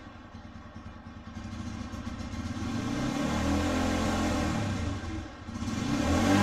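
TVS Apache RTR 160's single-cylinder four-stroke engine revved in neutral with the bike standing still. The revs climb over the first few seconds and hold high, fall back briefly about five seconds in, then rise again to their loudest near the end.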